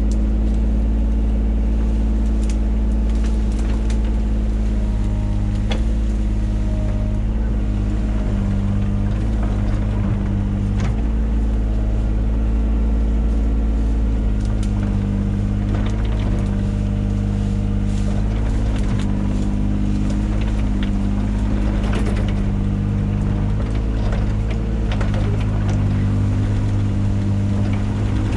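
Mini excavator engine running steadily under load, with scattered clicks and knocks throughout.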